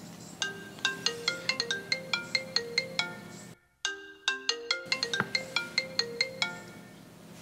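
Smartphone ringtone for an incoming call: a quick, marimba-like melody of bright plucked notes repeating. It drops out for a moment about halfway through, then resumes and stops about a second before the end.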